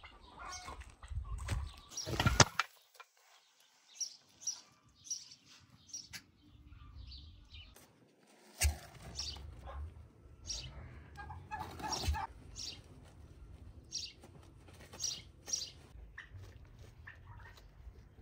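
Domestic white tom turkey flapping its wings in a loud rush about two seconds in as it is let go, followed by a string of short high bird calls and feather rustling as it struts and mounts a hen.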